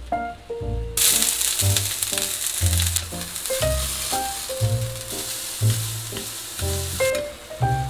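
Julienned vegetables sizzling as they are stir-fried over high heat in a stainless steel frying pan. The sizzle starts suddenly about a second in, is loudest at first, and fades near the end. Background music with a plucked bass line plays throughout.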